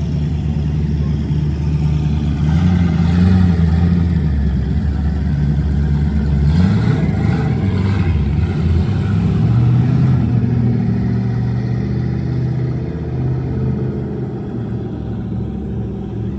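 Volkswagen Passat B6 driving slowly through a car park: a steady low engine and road rumble, the engine note rising and falling a few times around the middle, then easing off near the end as the car comes to park.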